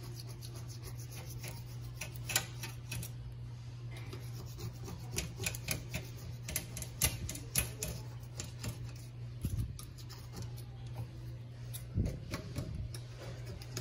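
Fingers and nails scraping and picking old silicone caulk off a stainless steel sink rim: irregular small clicks and scratches, with a steady low hum underneath.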